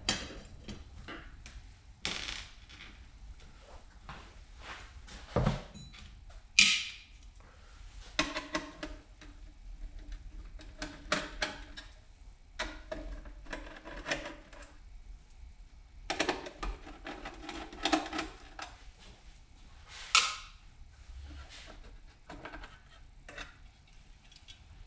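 Irregular clicks, taps and scrapes of hand work on a pickup's dash instrument cluster on a workbench, as the plastic housing is handled and worked with screwdrivers. A few sharper knocks stand out, about five and a half, six and a half and twenty seconds in.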